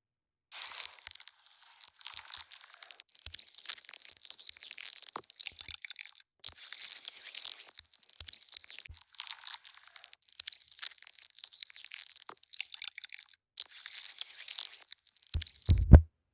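Close-miked crinkling, scratchy rustles in short irregular bursts, the sound of makeup items and packaging being handled. Near the end come two loud, heavy thumps.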